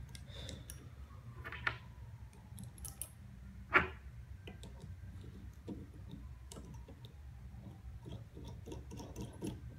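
Small metallic clicks and ticks of steel nuts and washers being turned by hand on the studs of a small bolted pipe flange, with one sharper click a little under four seconds in.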